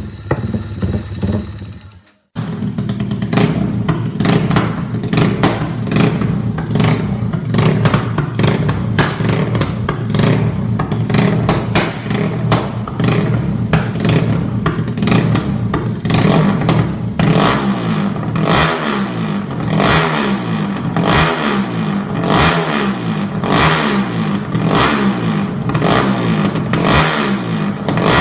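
Modified Yamaha Y15's single-cylinder four-stroke engine running and being revved, with a constant rattle that fits its Comstar dry clutch. From about 17 s on it is blipped over and over, each rev falling away quickly in pitch.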